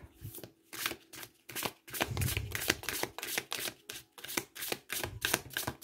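A deck of oracle cards being shuffled by hand, the cards slapping against each other in a quick, irregular run of soft clicks, about four a second.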